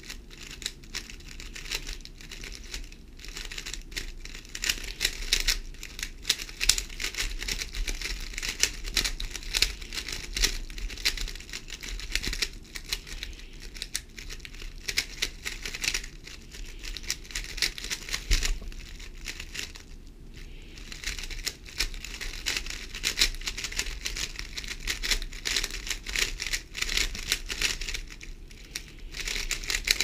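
GAN 11 M Pro 3x3 speedcube turned fast by hand: a dense, rapid run of plastic clicks and clacks from the layers, with brief lulls every several seconds between algorithm repetitions.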